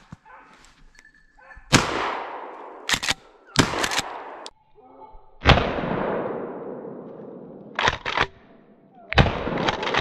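Three shots from a 20-gauge Remington 870 pump shotgun, about three and a half seconds apart, each echoing and dying away over a couple of seconds. Sharp clacks between the shots are the pump slide being racked to chamber the next shell.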